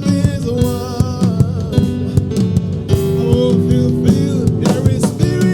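Instrumental worship music: held chords over a light, steady beat.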